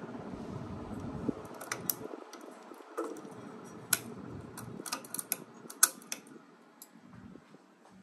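SMC DC42 ceiling fan running with a faint whir; its low hum drops away right at the start. Scattered light clicks and ticks sound irregularly, a dozen or so, the sharpest about six seconds in.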